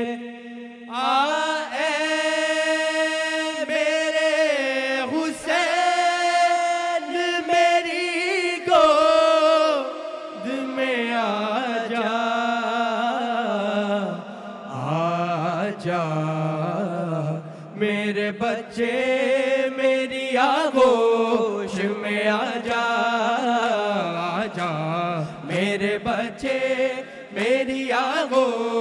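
Male voices singing a noha, an Urdu lament for the martyrs of Karbala, in long drawn-out wavering lines with no instruments.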